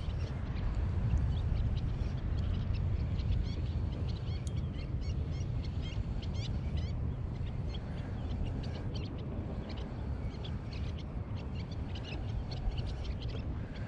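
Many birds calling, with short, quickly sweeping high chirps scattered throughout, over a steady low rumble.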